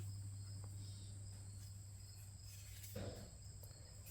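Quiet background of a steady low hum and a steady high-pitched whine, with a single light knock about three seconds in, likely from the torque arm being handled.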